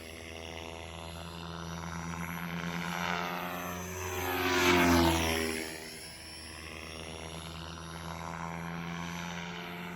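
Beam Archon 500 electric RC helicopter in flight, its rotor blades and motor whining steadily. The sound swells to its loudest about five seconds in, then eases off.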